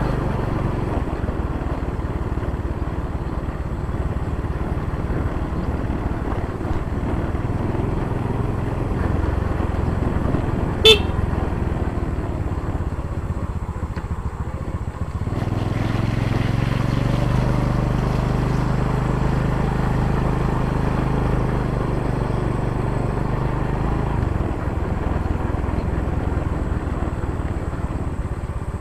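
Yamaha Jupiter Z motorcycle's small single-cylinder four-stroke engine running while riding, with wind and road noise. About eleven seconds in, a single short horn toot. From about fifteen to twenty-four seconds the engine holds a steadier low hum.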